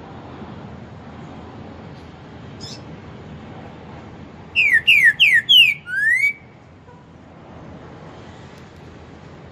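Green-winged saltator (trinca-ferro) singing one loud whistled phrase about halfway through: four quick clear notes that each slide downward, then a fifth that slides up, over about two seconds. This is the four-note song type with an ending note, over a steady low background hum.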